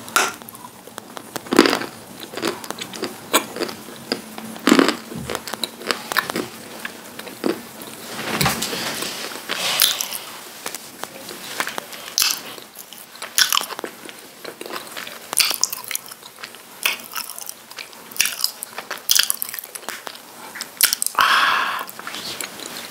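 Crunchy bites and chewing of dry lumps of edible clay, with irregular crunches and crumbling every second or so.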